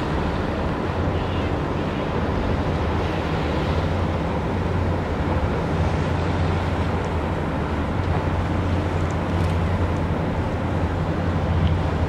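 Harbour ferry's engine running with a steady low drone, under a rush of wind on the microphone and water along the hull.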